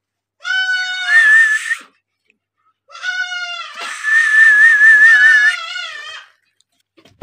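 Goats bleating: two drawn-out bleats, the second about three seconds long. Over each, a louder, shrill, wavering and harsh cry joins in.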